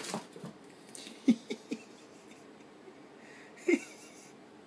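A kitten pouncing and tumbling on a hard case: a flurry of soft thumps and scrabbling at the start, three sharp knocks in quick succession about a second in, and one more knock with a brief rustle near the end.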